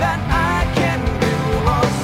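Rock music with guitar and a steady drum beat, in an instrumental stretch between sung lines.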